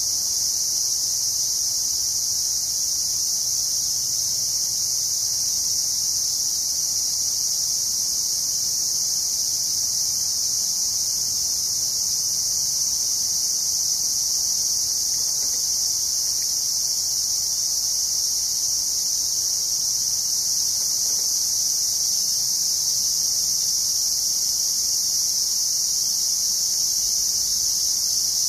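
Steady chorus of insects singing, a continuous high-pitched shrill with no breaks or change.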